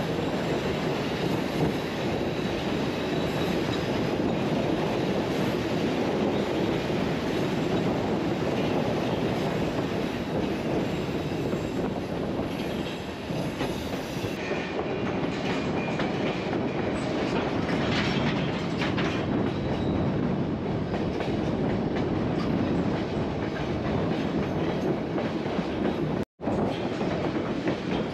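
White Pass narrow-gauge train running on the track: a steady rumble of wheels and cars with the clickety-clack of rail joints, and a brief faint high wheel squeal past the middle. The sound cuts out for an instant near the end.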